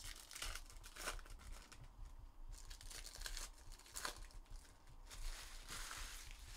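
Foil wrappers of Bowman Chrome baseball card packs being torn open and crinkled by hand, in several short rustling tears.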